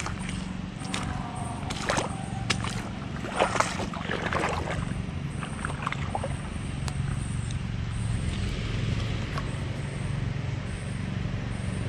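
Footsteps squelching and sloshing in wet mud at the water's edge, a run of irregular soft knocks and squishes over the first six seconds that then settles. A steady low hum runs underneath.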